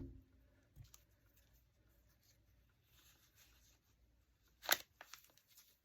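Quiet craft-table handling of a paper journal: a faint tick about a second in, then one brief rustle of paper near the end, followed by a few small clicks.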